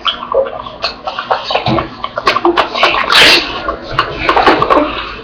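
A person lapping and slurping water with quick, rapid sips and small splashes, with a louder splash about three seconds in.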